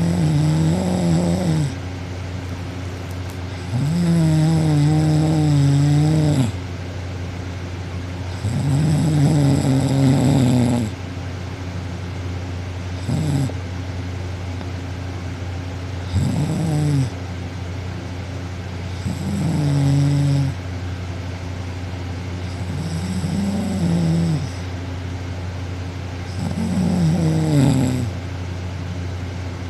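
A sleeping young woman snoring on her back. About eight pitched snores, each one to two and a half seconds long, come every three to four seconds over a steady low hum.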